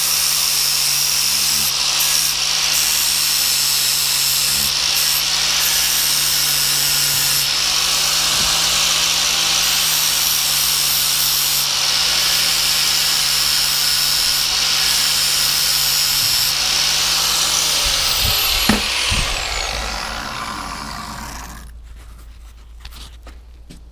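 Angle grinder with a flap disc grinding and sharpening the steel teeth of a hedge trimmer blade set, a steady loud grind. About 18 seconds in the grinder is switched off and winds down with a falling whine.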